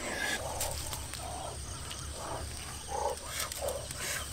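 Short animal calls, repeated irregularly about every half second, over a steady low rumble.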